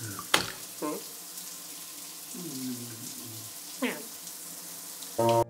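Water running steadily into a bath, a continuous hiss. Over it come a few short vocal sounds from the cartoon man on the floor: a falling groan in the middle and a louder cry just before the end.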